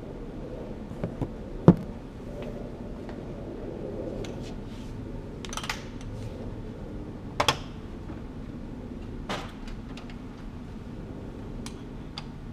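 Scattered sharp plastic clicks and knocks, the loudest about two seconds in, with more as the front door of a Xerox WorkCentre copier is unlatched and swung open, over a low steady background.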